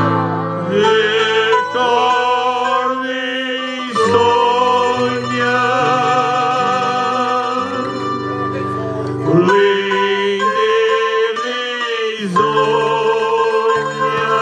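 Portuguese folk music: an instrumental passage between sung verses, with plucked string instruments, a stepping bass line and a held melody line with vibrato.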